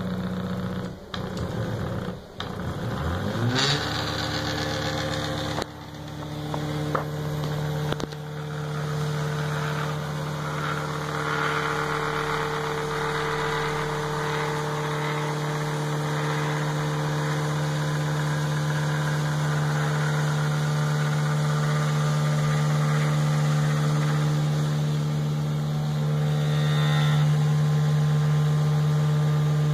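Stepper motors of a homemade CNC router driving the machine's axes during a GRBL homing test: a few short stops and starts, then a rising whine about three seconds in that settles into a steady hum.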